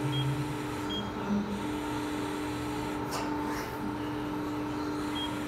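Amada FBD-8025 NT hydraulic press brake standing idle with its hydraulic pump motor running: a steady hum. Three short high beeps come at the start, about a second in and near the end.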